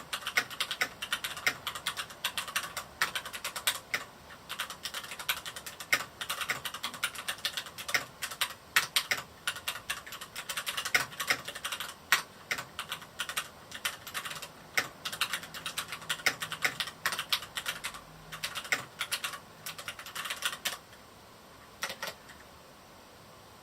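Fast, continuous typing on a Varmilo Miya68 mechanical keyboard with Cherry MX Red linear switches, an irregular stream of keystrokes that stops near the end, with one last keystroke in the pause.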